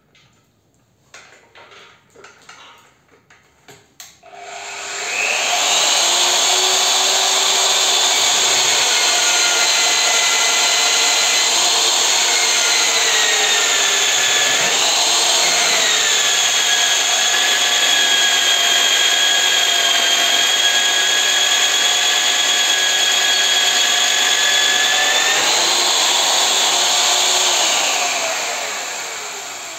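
A few handling clicks and knocks, then the ALLSOME BG-5157 drill press motor starts about four seconds in. It runs with a steady whine while a 22 mm hole cutter bores through a steel square tube. The pitch sags briefly midway under load and rises near the end as the cutter breaks through, and the motor is switched off and spins down.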